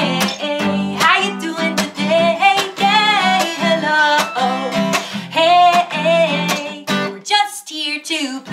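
A woman singing a children's hello song while strumming an acoustic guitar in a steady rhythm; the guitar's low notes drop out briefly near the end.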